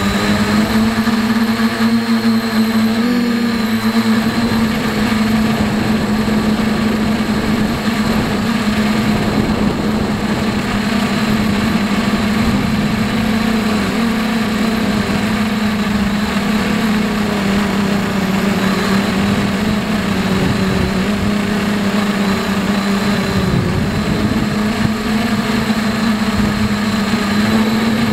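H-frame FPV quadcopter's brushless motors and propellers buzzing steadily, heard up close from the camera mounted on the craft, with a strong low hum that wavers a little in pitch as the throttle shifts.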